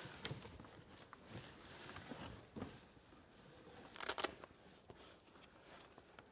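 Cardboard box being shifted, then rustling and handling noises as someone rummages inside a bag, with a brief louder rustle about four seconds in.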